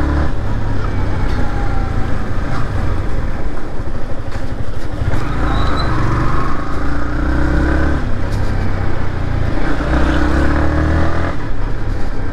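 Yamaha MT-15's single-cylinder engine heard while riding, its note climbing and dropping a few times as the bike accelerates and shifts.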